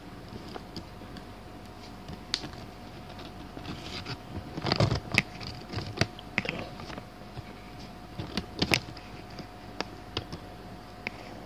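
Scattered light clicks and taps from handling a disassembled LCD monitor panel, with a small cluster about halfway through and two sharp ones a few seconds later, over a faint steady hum.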